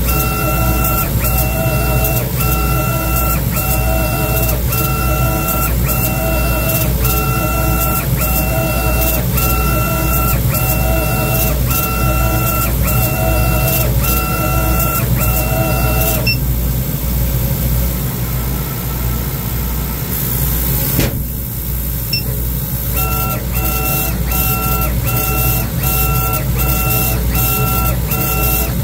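Laguna laser cutter's motion system driving the laser head over a bamboo board: a pitched motor whine that breaks and restarts about once a second as the head changes direction, over a steady low hum. The whine stops for about seven seconds past the middle, then starts again.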